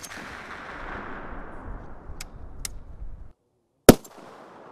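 M107 .50-calibre sniper rifle: the long echo of a shot fades, cuts off suddenly, then a second very loud shot about four seconds in, followed by its own fading echo.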